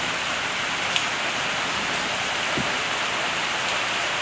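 Heavy rain pouring onto a tiled patio and a fabric patio umbrella, a steady hiss with one faint tick about a second in.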